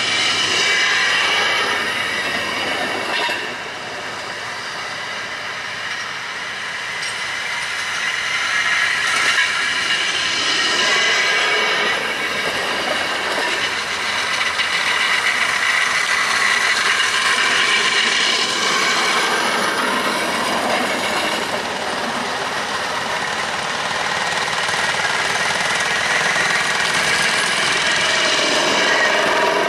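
A procession of rail speeders running along the track one after another, their steel wheels on the rails and small engines making a steady running noise that swells as each car passes.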